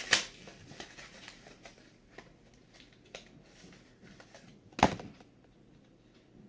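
Hands working at the plastic packaging of a microSD card: sharp crackling clicks at the start, scattered small ticks, and one loud sharp snap about five seconds in.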